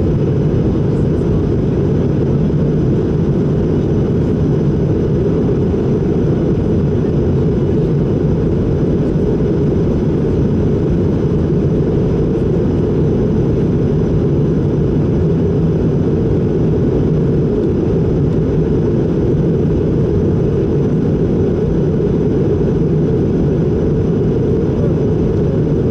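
Steady cabin roar inside an Airbus A220-300 on descent, heard from a window seat beside the wing: airflow over the fuselage and the hum of its Pratt & Whitney PW1500G geared turbofan engines, deep and even throughout.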